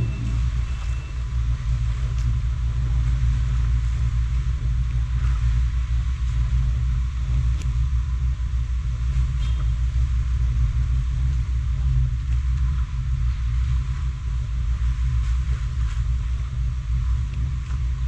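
Wind buffeting the microphone: a steady low rumble with a faint hiss above it and a few faint clicks.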